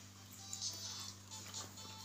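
Faint background music over a steady low hum.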